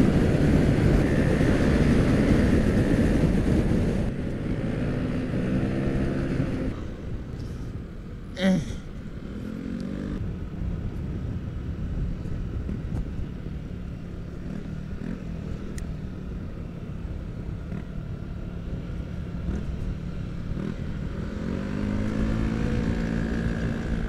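Yamaha automatic scooter engine running on the move, with heavy wind rush on the helmet microphone. The engine note climbs as the scooter accelerates about four seconds in and again near the end, with a short, higher sound about eight seconds in.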